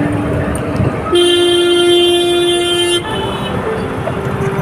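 A vehicle horn sounds one steady, held blast of about two seconds, starting about a second in, over constant street noise.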